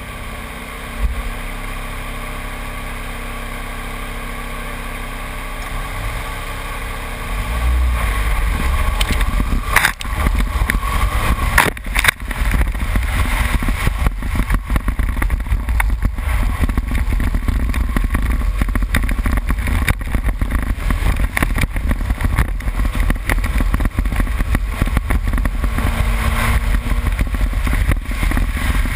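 A 2001 Subaru Impreza 2.5RS's 2.5-litre flat-four runs steadily while the car is stopped at the start. About seven seconds in it revs up hard as the car launches and runs at speed over a dirt and gravel rallycross course. Through the run, stones and bumps rattle and knock against the car in a dense, constant clatter.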